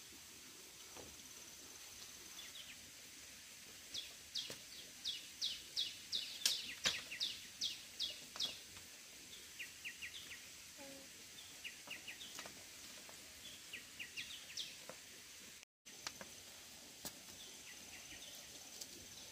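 A bird calling: a run of about a dozen quick, high, falling chirps, then shorter, lower chirps in small groups. Behind it is a steady high insect trill.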